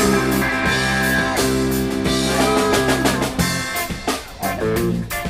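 Instrumental break of a rock song: electric guitar with bent, gliding notes over bass and drums. About three and a half seconds in, the held chords give way to choppier playing with sharp drum hits.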